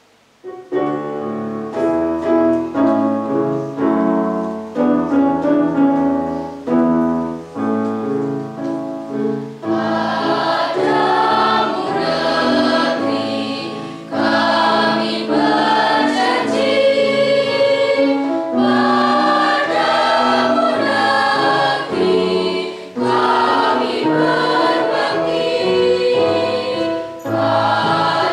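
School choir of teenage students singing together, with instrumental accompaniment underneath. The music starts about half a second in and grows fuller about ten seconds in.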